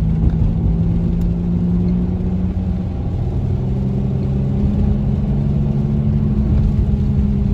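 Dodge Dart on the move with a loud vibrating sound: a steady low drone over the rumble of the road and engine. It comes from a burnt-up rear wheel bearing and does not follow engine speed.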